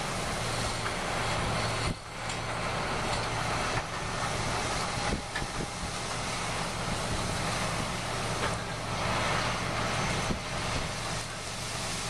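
Seed corn picker's hopper dumping ears of corn into a semi trailer: a steady rush of ears pouring in, with a few short knocks, over the machine's engine running at a steady drone.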